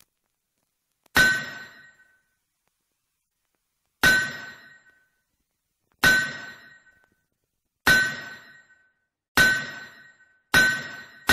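Hammer blows on a steel anvil, each one a sharp strike followed by a clear metallic ring that fades over about a second. There are six blows, coming closer together toward the end.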